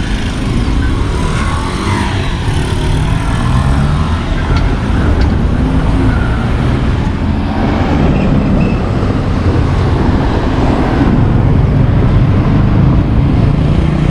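Road traffic: car engines running close by over a steady roadway rumble.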